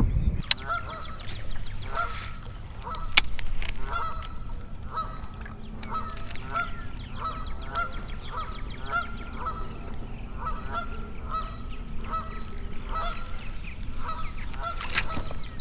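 Geese honking over and over, short calls about twice a second, with a sharp knock about three seconds in.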